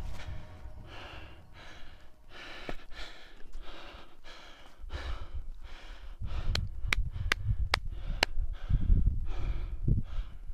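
A person breathing hard in quick, rhythmic breaths, panting. About two-thirds of the way in there is a quick run of five sharp clicks, and a low rumble on the microphone in the second half.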